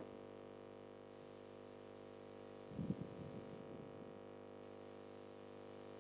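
Quiet pause with a steady low hum in the background, and a brief faint low sound about three seconds in.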